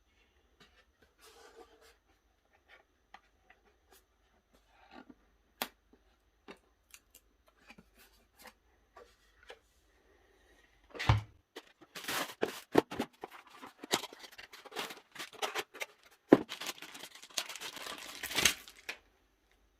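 Unboxing handling noise: a few scattered light clicks and taps at first. About eleven seconds in, this gives way to a dense run of packaging being torn open and rustled, loudest near the end.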